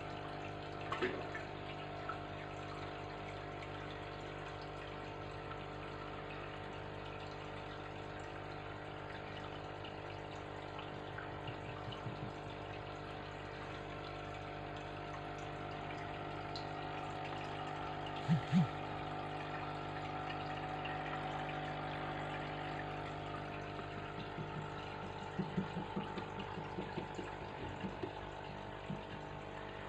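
Aquarium filter pump running steadily with a hum and water trickling. A couple of soft knocks come about two-thirds of the way through, and a run of small taps near the end.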